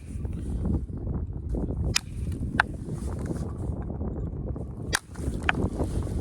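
Flint knapping by pressure flaking: a copper-tipped pressure flaker pressed against the edge of a stone point, giving two pairs of sharp clicks, one about two seconds in and one about five seconds in, as flakes snap off. Steady low wind noise on the microphone runs underneath.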